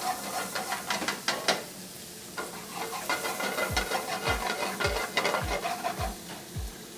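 Diced ham, chorizo, onion and chile sizzling in a metal sauté pan over a gas flame, stirred with a wooden spatula that scrapes and clicks against the pan. From about halfway through there are also low thuds, about two a second.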